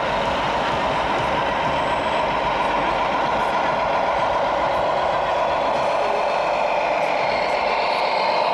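Engine sound of an RC model truck, played by its electronic sound module and running steadily.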